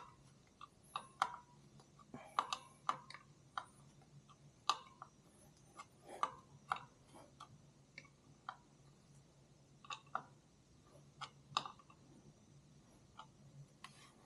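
Scattered light clicks and metallic taps, irregular and a second or so apart, from hand tools working on a Harley-Davidson clutch assembly held under heavy spring tension. A faint steady low hum sits underneath.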